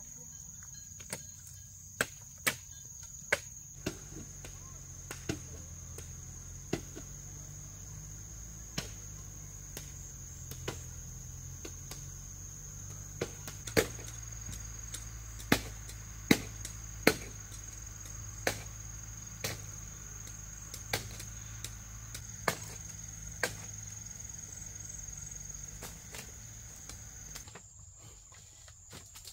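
Irregular sharp knocks of bamboo being chopped and struck, roughly one every second, over a steady high insect drone.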